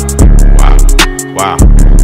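Hip hop beat with deep sustained bass and quick hi-hats; the bass drops out briefly a little over a second in.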